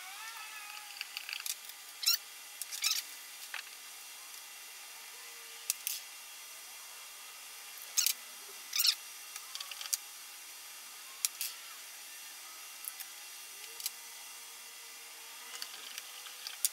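Hands working glued sheet latex, pressing and smoothing a seam: scattered short, sharp rubbing and crackling sounds over a faint steady hiss.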